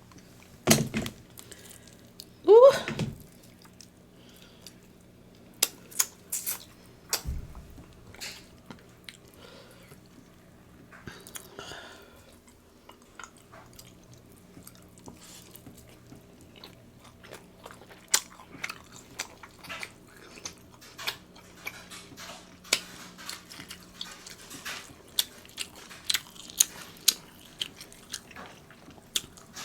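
Close-miked eating of a seafood boil: chewing, biting and crunching, with many short sharp clicks and cracks, denser in the second half.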